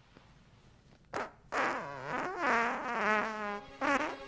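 Long, drawn-out comic fart: a short blurt about a second in, then a pitched rasp that wobbles up and down before holding one steady note, and another short burst near the end.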